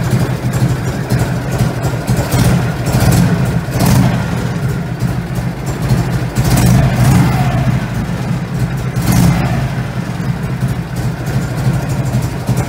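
Harley-Davidson Shovelhead 45-degree V-twin running, its revs rising several times over a steady low exhaust beat. On stock ignition timing and the advanced curve of a VOES-equipped ignition module, it runs without the loping three-beat rhythm but picks up sharply on the throttle.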